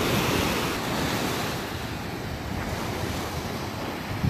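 Small waves breaking and washing up a sandy beach, loudest in the first second, with wind buffeting the microphone.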